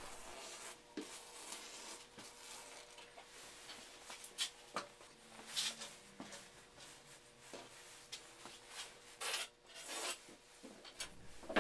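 Faint rustling and scraping of upholstery fabric being cut with shears and handled on a cutting table, in short scattered strokes.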